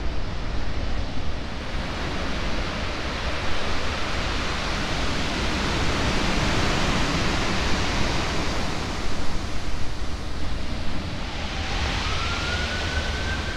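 Pacific surf breaking and washing on the shore: a steady rushing that swells and ebbs. Near the end a short high tone slides up and holds for about a second and a half.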